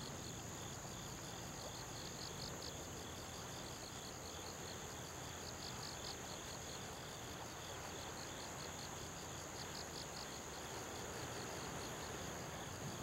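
Insects calling: a steady high trill together with a higher chirping in repeated runs of short pulses, over a low, steady rumble.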